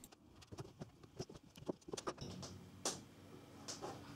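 Faint, scattered light clicks and taps of tools against the plastic parts of a 3D-printed hull mould as it is taken apart.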